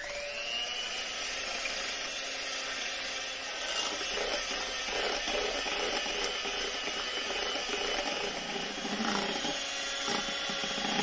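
Electric hand mixer switching on, its motor winding up within the first half second, then running steadily as its beaters whip eggs and powdered sugar in a glass bowl until they triple in volume. A few brief clatters of the beaters against the glass come through the whir.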